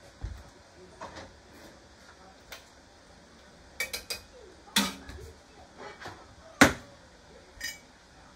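Pots and a pot lid handled on a stovetop: scattered knocks and clinks of cookware being set down and moved, with the loudest knock about six and a half seconds in.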